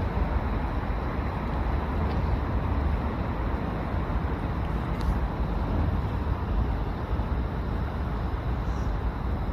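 Steady low rumble and hiss of wind buffeting the microphone outdoors, with no distinct events.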